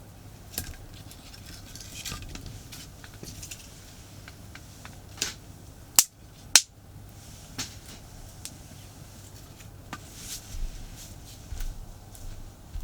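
Wood fire crackling, with scattered sharp pops and two loud snaps about half a second apart some six seconds in.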